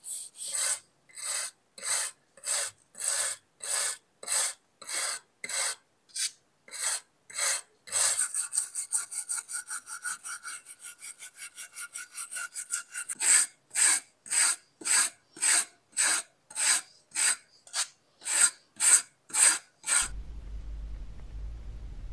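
Back-and-forth strokes of hand abrasion on a knife being restored, about two a second. For a few seconds in the middle they come faster, about four or five a second. Near the end the strokes stop and a steady low hum takes over.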